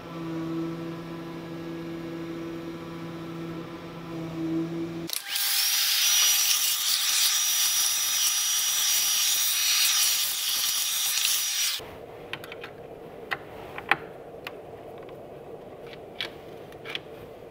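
Carvera benchtop CNC mill running steadily while engraving. About five seconds in, a vacuum cleaner starts up sucking chips off the bed: a loud airy rush with a thin high whistle that cuts off suddenly about twelve seconds in. Light clicks and taps of a hand driver on the metal bed follow.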